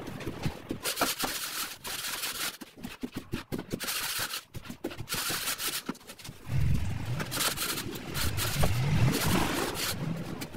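A wooden screed board scraping over a semi-dry sand-and-cement floor screed in repeated gritty strokes. From about six seconds in, a louder low, wavering hum joins the scraping.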